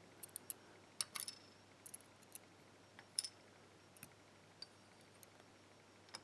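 Light, irregular metallic clicks and ticks of small lock parts being handled: tweezers, pins and the lock plug of a pin-tumbler lock being disassembled. About fifteen faint clicks, some in quick pairs.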